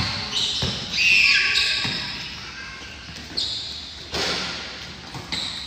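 Basketball bouncing on a hard tiled court in a pickup game, with short sneaker squeaks and running footsteps between the bounces; the sharpest knocks come about a second in and about four seconds in.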